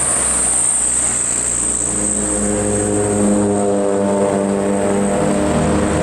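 Tour bus's diesel engine running as it passes, a steady drone that turns more tonal about two seconds in, under a continuous high-pitched whine. No horn melody sounds.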